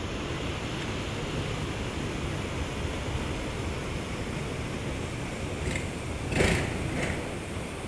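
Wind noise on the microphone, a steady low hiss, with a short louder burst about six and a half seconds in.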